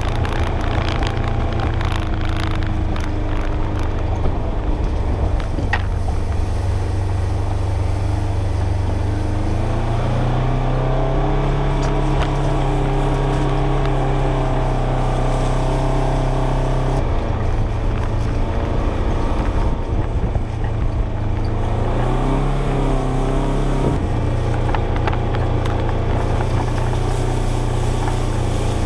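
Polaris Ranger XP 1000 UTV's twin-cylinder engine running in low gear while towing a steel drag across wet clay, its revs stepping up and down a few times.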